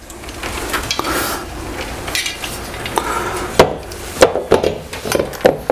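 Metal TV wall-mount bracket clinking and knocking against the wall as it is handled and pressed into place, with two sharp knocks a little past halfway.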